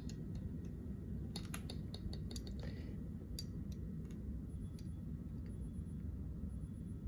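Scattered light clicks and taps, mostly in the first half, as a glass boiling tube is lifted from its water beaker, measured against a plastic ruler and pencil, and set back. A low steady room hum runs underneath.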